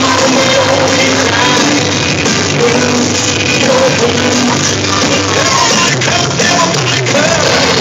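Loud rock music with a sung vocal.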